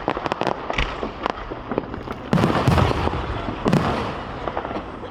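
Aerial fireworks going off: a run of sharp crackling pops, then a loud deep boom about two seconds in and another near four seconds, each echoing on.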